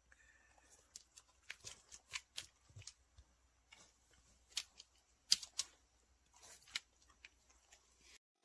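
A puppy's claws clicking on a hard laminate floor as it moves about: faint, irregular ticks, the loudest a little past the middle.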